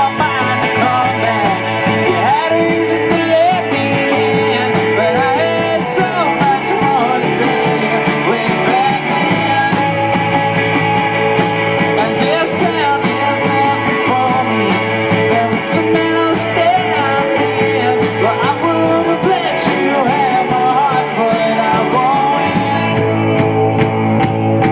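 A roots-rock band playing a song live, with guitars and a man singing.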